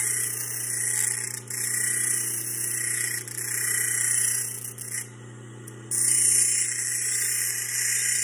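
Industrial bench grinder running with a steady motor hum while a stainless steel blank is ground against the wheel to take off burrs and reshape it. The hissing grind swells and fades as the piece is pressed on and eased off, and it drops away for about a second just after the middle.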